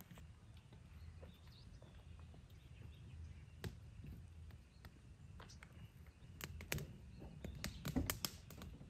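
Newly lit campfire of split-wood kindling and shavings crackling: scattered sharp pops and snaps, coming thicker near the end, over a faint low rumble.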